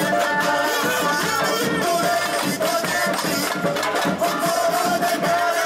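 Live samba band playing: dense, driving percussion with shakers over a sung or played melody.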